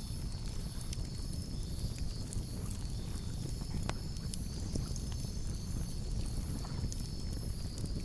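Wood campfire crackling, with scattered sharp pops over a steady low rumble. A high, rhythmic chirping pulses a few times a second in the background.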